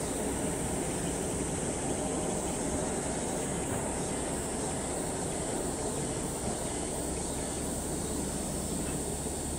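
Distant Airbus A380's four Rolls-Royce Trent 900 turbofans at idle as the airliner slows and turns after landing: a steady low rumble with a thin high hiss.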